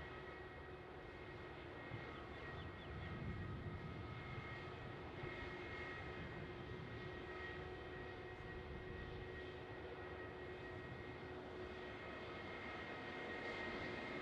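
Airbus A320 jet engines running at idle as the airliner taxis past: a steady hum with a high, even whine.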